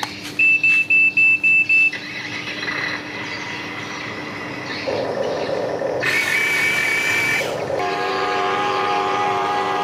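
Huina RC excavator's electronic sound effects: six quick high beeps at switch-on, then a simulated engine starting and settling into a steady run, with a held high tone partway through.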